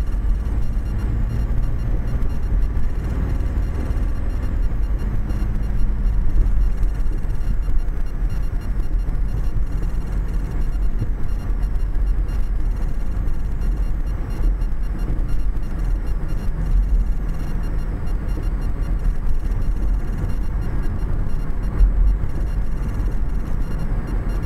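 Steady low rumble of tyres and engine heard inside a car's cabin as it drives over frost-heaved pavement, with a few brief louder jolts from bumps in the road.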